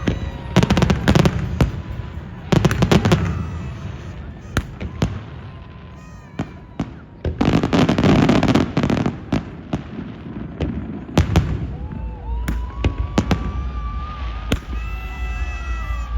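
Aerial fireworks bursting in repeated sharp bangs and dense crackling clusters. A crowd cheers and whoops between them, mostly in the second half.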